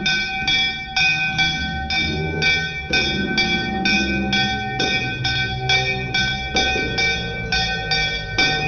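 A bell rung steadily during an aarti, about three strikes a second, each strike leaving a clear metallic ring. Voices singing and hand-clapping go along with it.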